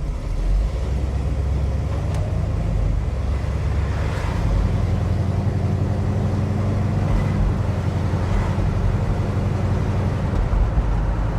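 The 428 Cobra Jet V8 of a 1969 Ford Mustang Shelby GT500 rumbling on the move, heard from inside the cabin. The revs climb a few seconds in, hold steady, then ease back near the end.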